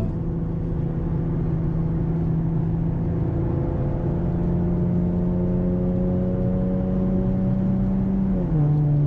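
A 2014 Ford Mustang's engine and tuned exhaust drone steadily under way. The pitch creeps up slowly, then drops sharply near the end.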